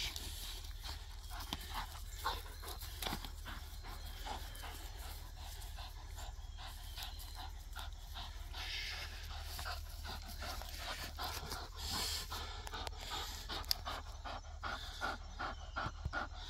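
Vizsla panting after chasing and tugging on a toy, with scattered small clicks and rustles.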